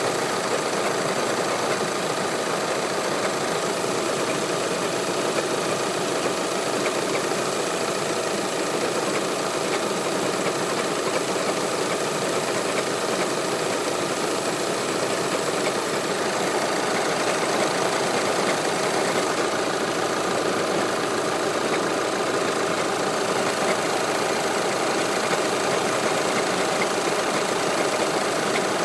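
Audi A4 2.0 TDI four-cylinder diesel engine idling steadily, heard with the bonnet open, with a fine regular clacking running through the idle. The owner suspects a defective dual-mass flywheel.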